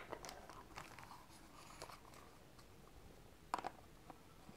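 Mostly quiet handling of a Fujifilm X-T200 camera body and its XC 15-45mm lens: a few faint clicks, then a sharper double click about three and a half seconds in as the lens is fitted to the body.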